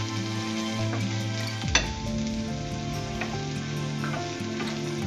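Chopped onions and green chillies sizzling in hot oil in a frying pan while being stirred with a wooden spatula. A single sharp knock, the loudest moment, comes just under two seconds in.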